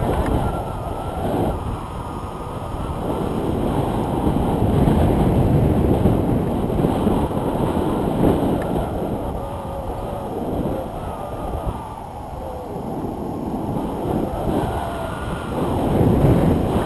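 Wind buffeting the microphone of a stick-held camera in paraglider flight: a low, rumbling rush that swells and fades.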